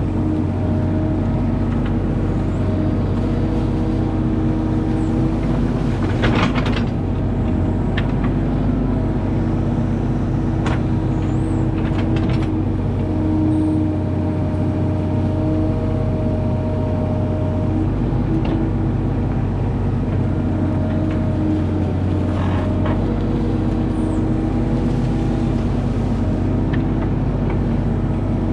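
Mini excavator's diesel engine running steadily, with its hydraulics whining under load in tones that swell and fade as the boom and bucket move. A few brief knocks and scrapes come through as the bucket works the dirt.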